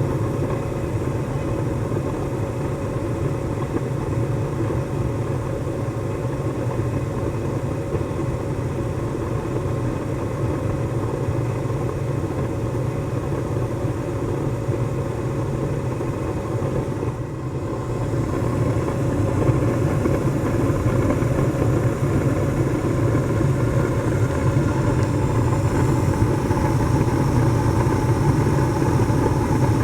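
A 3-ton air-conditioning condenser unit running, its compressor and fan giving a steady low hum. About two-thirds of the way through the level dips briefly, then carries on a little louder.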